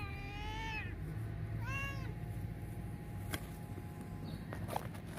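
A cat meowing twice: a long meow that falls and then levels off at the start, and a shorter one that rises and falls about two seconds in. A single sharp click follows a second later.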